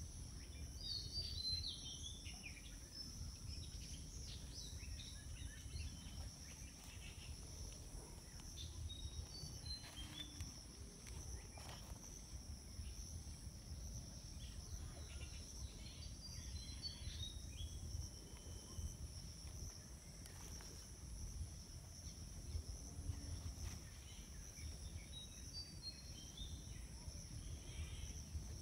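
Outdoor ambience: insects droning in a steady, high-pitched chorus, with short bird chirps about four times, over a low rumble.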